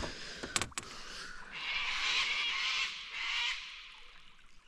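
Harsh, screeching bird calls in a few long bursts, with two sharp clicks just after half a second in.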